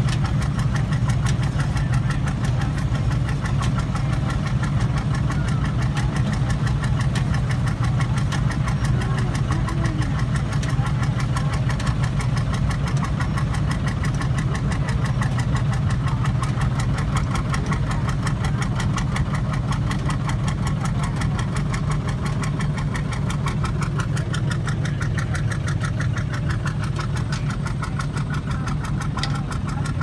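Vintage John Deere tractor engine running steadily, with an even, rapid firing beat.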